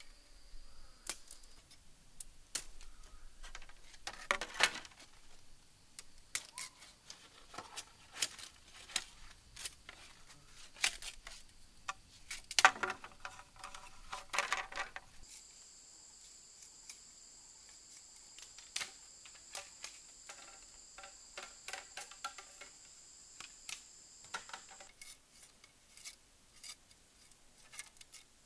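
A machete blade splitting and shaving thin bamboo strips: irregular sharp clicks and scrapes, with louder crackling splits around four seconds in and again around twelve to fourteen seconds in. A steady high insect drone sounds behind it through the middle stretch.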